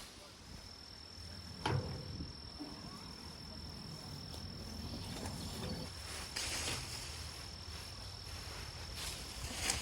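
An insect's steady, high-pitched single-tone call, held without a break for about nine seconds, with a few sharp knocks: one about two seconds in and a louder one near the end.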